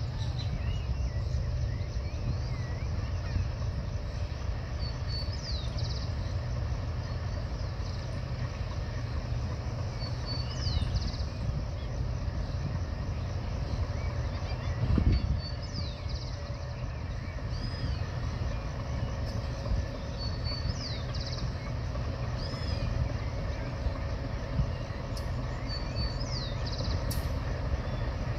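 Distant ALCO RSD-39 diesel locomotive running as it slowly approaches, a steady low rumble, with a bird repeating a short chirping call about every five seconds. A single thump about halfway through.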